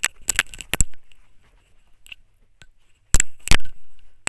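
Sharp clicks and taps. A quick cluster comes in the first second, then two loud knocks a little over three seconds in.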